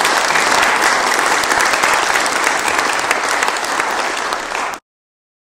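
Audience applauding, a dense, steady clapping of many hands that cuts off abruptly near the end.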